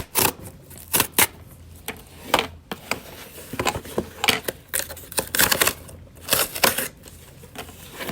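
A cardboard mailer box being opened by hand: a string of irregular scrapes, clicks and short rips of cardboard and packing.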